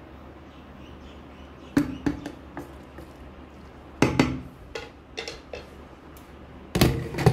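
A wooden spatula knocking and scraping against a kadai while cooked cabbage is stirred: sharp clacks in several short clusters, the loudest about four seconds in and near the end.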